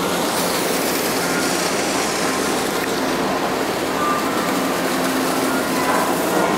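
Steady mechanical hum and even rushing hiss of a docked car ferry's machinery running, heard from its open deck.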